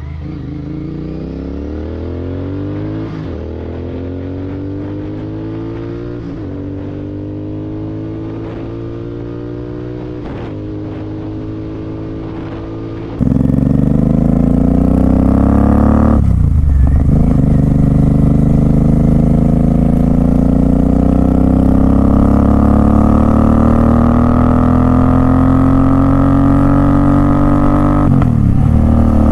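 Royal Enfield Continental GT 650's parallel-twin engine through a loud Red Rooster aftermarket exhaust, accelerating up through the gears. The note climbs and drops back at each shift, three times in the first half. About halfway in it turns abruptly louder and runs through two longer climbs with a shift between them.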